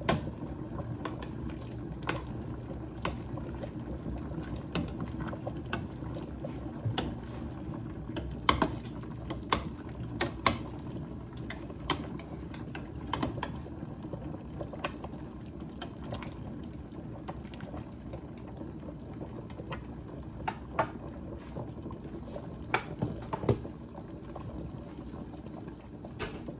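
A stainless steel pot of sinigang broth boiling with a steady bubbling. A metal ladle stirring it clinks and scrapes against the pot every few seconds.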